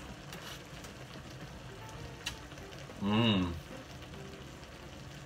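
A man's short wordless hum, about three seconds in, as he tastes sauce, over a faint steady crackling hiss. A small click comes shortly before the hum.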